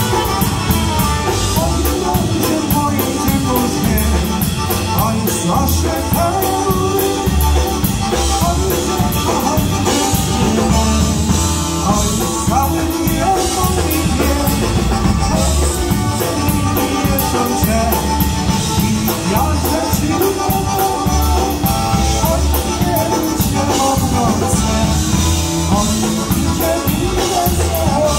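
Live polka band playing a Góral polka: fiddle lead over accordion, electric bass guitar and drum kit, with a steady, even beat.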